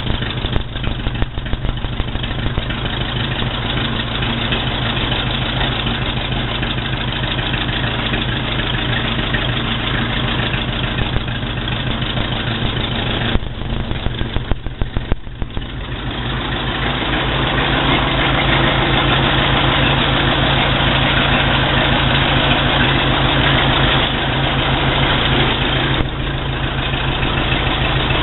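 Freshly rebuilt Ford Model B four-cylinder flathead engine running steadily at idle, with an even, regular firing beat. It sounds louder from about halfway through.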